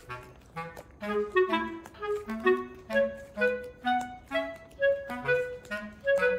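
Background music: a light tune of short, separate notes played several to the second, in a clarinet-like woodwind sound.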